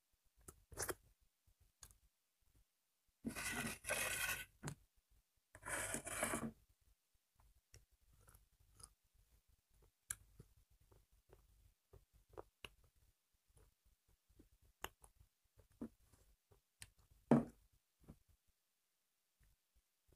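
A person eating crunchy fried snacks by hand, close to a clip-on microphone. Two longer rasping crunches or scrapes come a few seconds in, followed by scattered small chewing and handling clicks and one sharp knock near the end.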